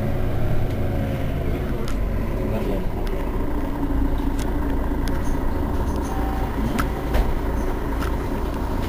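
Mercedes-Benz Citaro Facelift city bus idling at a stop, a steady low engine rumble, with a few short clicks over it.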